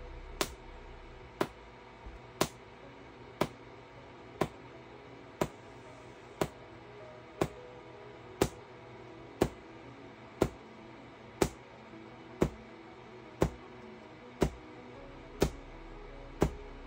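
QCW pancake Tesla coil firing single bursts about once a second, each a sharp snap of spark discharge, over background music.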